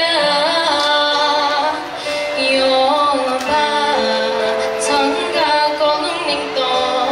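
A woman singing a melodic song over instrumental accompaniment, her voice gliding between long held notes.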